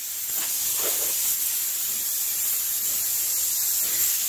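Compressed air hissing steadily as it escapes through the air hose of a Campbell Hausfeld 20-gallon compressor, the tank charged to about 120 PSI and the pump not running.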